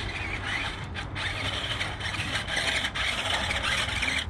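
Small electric RC vehicle, a JJRC Q137 8x8 skid steer, whining from its motors and plastic gearboxes as it drives over rough ground, with the whine dropping out briefly about a second in as the throttle is let off.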